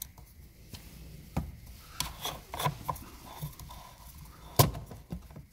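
A hand rubbing and knocking on the plastic coolant reservoir and nearby engine-bay parts: soft scraping with a few sharp clicks, the loudest about four and a half seconds in.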